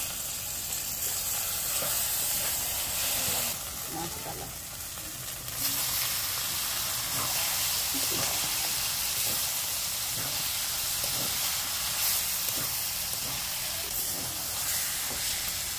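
Onions, masala paste and raw chicken pieces sizzling in hot oil in a metal kadai, with a metal ladle scraping as it stirs. The sizzle drops briefly after about three and a half seconds, then comes back louder about five and a half seconds in and stays steady.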